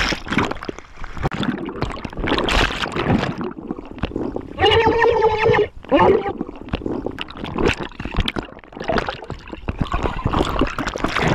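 Churning, gurgling water and bubbles heard through an underwater camera's microphone, irregular and crackly throughout. About halfway through, a loud held shout lasts about a second, followed by a shorter one.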